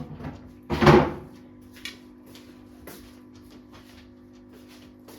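Mukbang eating sounds: one loud short clatter or mouth noise about a second in, then a few faint clicks, over a steady low hum.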